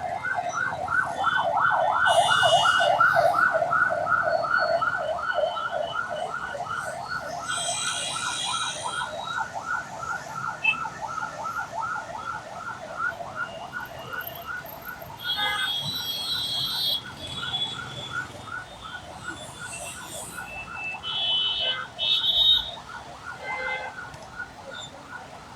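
Emergency vehicle siren wailing in a fast yelp, about four or five wails a second, loudest a few seconds in and then slowly fading as it moves away. It plays over road traffic with several short horn blasts.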